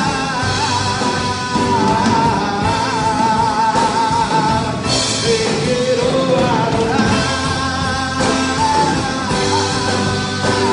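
Live worship band playing: drums, electric guitar and keyboard under a singer at a microphone, who holds long, wavering notes.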